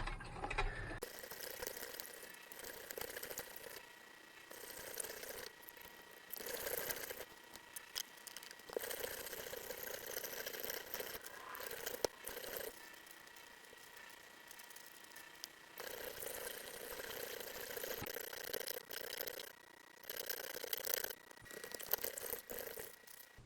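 Weston No. 32 meat grinder grinding tough lower-leg meat, with a faint steady whine under uneven surges of grinding and rattling that come and go as meat is fed through.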